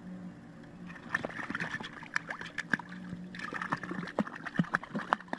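Water splashing and sloshing in quick, irregular bursts, starting about a second in, over a faint steady hum.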